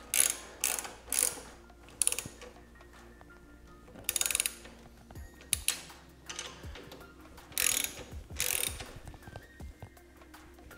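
Plastic cable ties being pulled tight around wiring, each pull a short ratcheting zip. About ten zips: a quick run in the first two seconds, then a few more spaced out.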